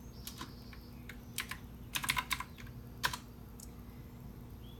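Computer keyboard being typed on: a few scattered key presses in short clusters, typing a command to resume a paused program.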